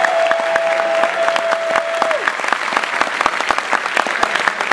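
An audience applauding, dense at first and thinning into more separate claps after about two and a half seconds, with one steady held tone over the clapping in the first two seconds.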